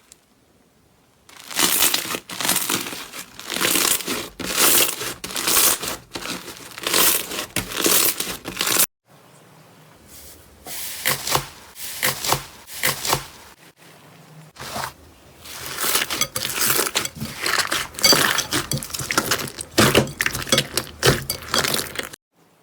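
Slime being squeezed, stretched and pressed by hand, making dense crackling, tearing sounds in repeated surges. It stops abruptly about nine seconds in and starts again shortly after.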